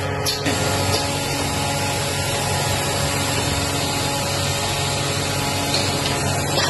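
Steady machine din of a running Reimelt/Kemper Berliner doughnut frying line: motors and conveyors with a low hum underneath and an even hiss over it. A short hiss near the start.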